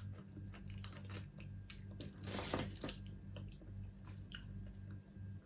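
Close-up chewing and crunching of seafood, with small wet clicks and a louder crunch about two seconds in.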